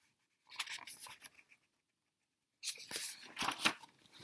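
Paper rustling of a picture-book page being turned, in two spells: a short one about half a second in and a longer one from past the middle.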